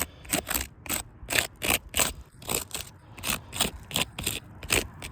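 A quick series of short gritty scrapes and crunches on asphalt roof shingles, about three a second.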